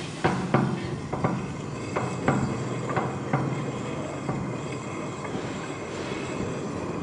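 Wooden spatula stirring and scraping a watery masala in a nonstick pot, knocking against the pan several times in the first few seconds, over a steady low rumble.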